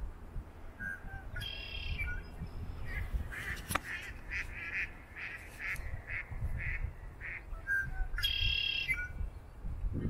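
Male red-winged blackbird singing: a buzzy trilled song about a second and a half in and again near the end, with a run of short repeated bird notes between them and a low rumble underneath.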